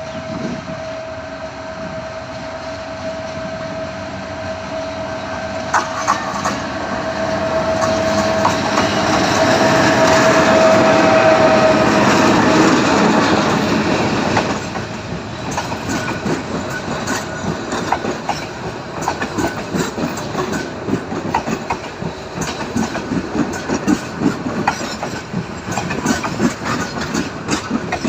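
Karnaphuli Express passenger train passing. A steady tone and engine noise grow louder to a peak about 11 seconds in, fall away suddenly about 14 seconds in, and are followed by the rhythmic clickety-clack of the coaches' wheels over the rail joints.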